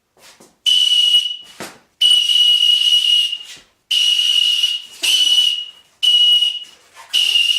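Handmade wooden whistle blown in about six loud blasts of roughly a second each, each a single steady shrill tone with a breathy hiss, with short gaps between.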